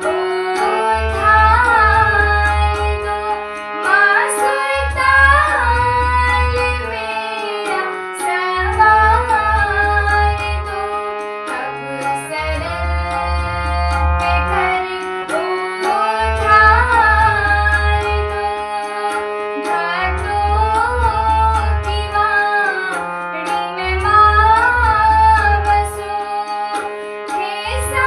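Indian devotional bhajan music: a gliding melodic line over tabla and a bass that pulses in a steady rhythm.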